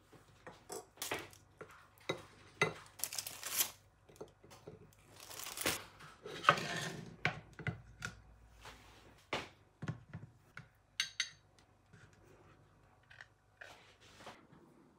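Food being plated by hand: a knife and strawberries clicking and tapping on a ceramic plate, and things set down with light knocks. Two longer stretches of rustling, like a packet being torn open and handled, about three and five seconds in.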